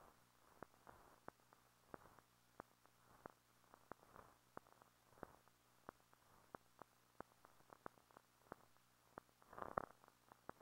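Near silence: faint film-transfer crackle, with clicks and pops about two to three times a second over a low steady hum, and a louder crackle near the end.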